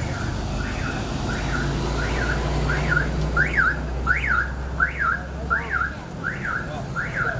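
A vehicle alarm chirping in a repeating rise-and-fall pattern, about two chirps a second, loudest in the middle. A low steady hum underneath stops about six seconds in.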